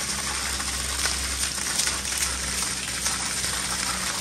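Water gushing steadily from a wall pipe and splashing onto the tiled floor of a drained swimming pool.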